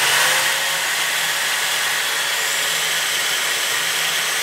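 Electric drill clamped in a vise, running steadily with a low hum and a steady hiss, spinning a gear shaft while a flat file is held against it to turn the oversized shaft down by hand.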